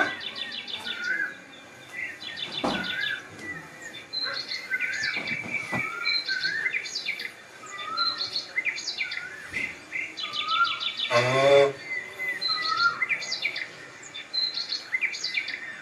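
Several birds chirping and calling, with short rising and falling notes and rapid trills. About eleven seconds in, a brief louder and lower call with several pitches stands out.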